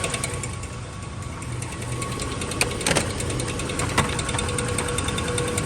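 Dodge Dakota 4.7-litre V8 running, with a fast, even ticking and rubbing from the back of the engine and a few sharper knocks about three and four seconds in: the engine spacer plate, pushed out by the rusted iron block, is rubbing the flywheel.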